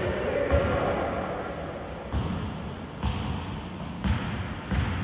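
Basketball bouncing on an indoor court floor: about six low thumps at uneven spacing, with the echo and murmur of a gym hall behind them.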